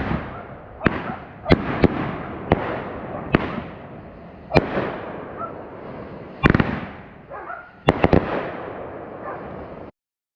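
Fireworks going off: about ten sharp bangs at uneven intervals, roughly one a second, each trailing off in a long echo. The sound cuts off abruptly near the end.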